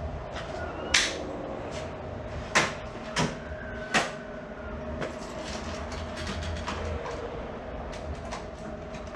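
Metal tool-chest drawers and tools clattering as someone rummages at a rolling tool chest. Four sharp knocks come in the first four seconds, then lighter clicks and sliding, over a steady hum.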